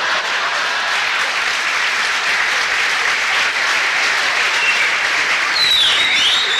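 Theatre audience applauding steadily, with a brief high gliding tone near the end.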